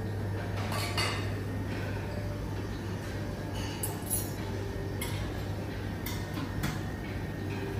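Scattered clinks of glassware, crockery and cutlery, as at a lounge buffet, over a steady low hum.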